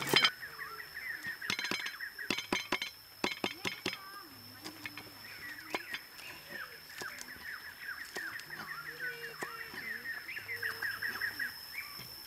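Cleaver chopping shallots and spring onions on a wooden board: a sharp knock right at the start, quick runs of chops in the first four seconds, then scattered single chops. Bird calls and a steady high whine go on behind.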